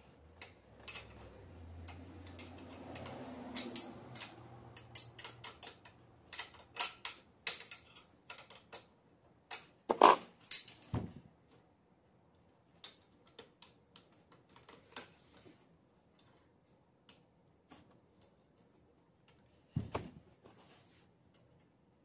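Wrench work on a small dirt bike's rear wheel axle: a run of quick, irregular clicks for several seconds, with a louder knock about ten seconds in and another near the end.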